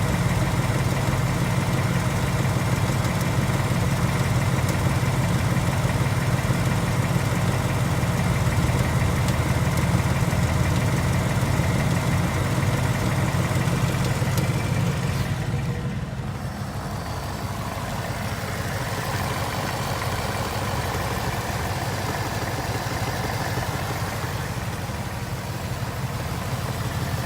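2018 Ford Mustang GT's 5.0 Coyote V8 idling steadily. A little over halfway through the sound becomes slightly quieter and duller.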